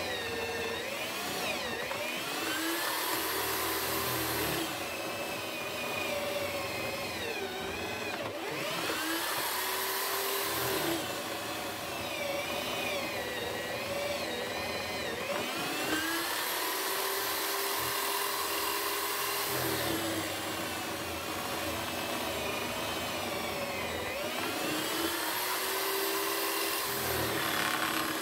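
Electric motor of a homemade wood-mortising jig running under load, its whine sagging in pitch as the bit bites into the timber and climbing back to a high steady speed as the load eases, about four times over.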